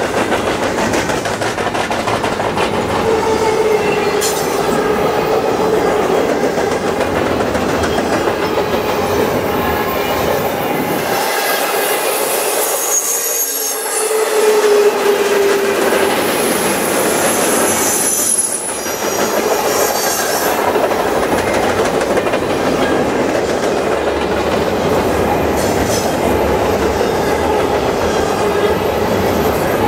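Container-laden intermodal freight cars rolling past: a steady rumble and clatter of steel wheels on rail, with brief wheel squeals now and then, the shrillest about halfway through. The low rumble thins for a few seconds around the middle.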